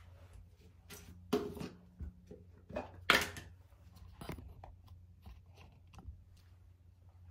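Phone being handled and propped up: a series of rustles, bumps and clicks, the loudest bump about three seconds in, over a low steady hum.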